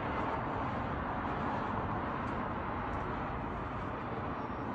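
Steady outdoor city noise picked up on a phone microphone: an even rushing hiss and rumble with no distinct events.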